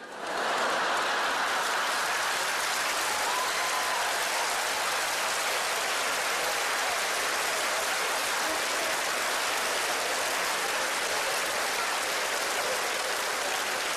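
A large audience breaks into applause and laughter right at the start, then keeps clapping steadily.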